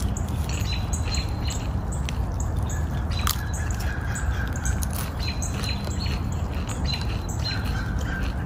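Wild birds calling in woodland: short chirps and squawks with a few held whistled notes, over a steady low rumble.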